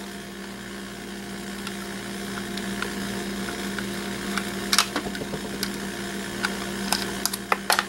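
Screwdriver working the screws out of a small plastic Ethernet adapter's housing, with a few sharp clicks and taps of metal on plastic, the clearest about five seconds in. A steady low hum runs underneath.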